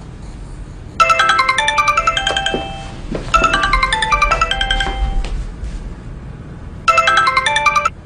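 A mobile phone ringtone plays a quick electronic melody of short bright notes. The phrase starts about a second in and comes three times, and the third time is cut off near the end.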